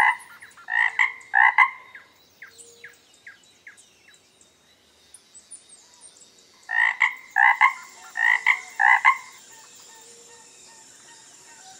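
A frog calling in two bouts of short, repeated croaks, about half a dozen notes in each, with a pause of several seconds and a few faint clicks between them. A faint steady high hiss comes in during the second bout.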